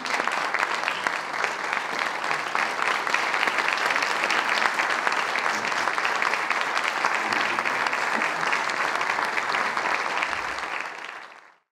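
Audience applauding: dense, steady clapping that fades out at the very end.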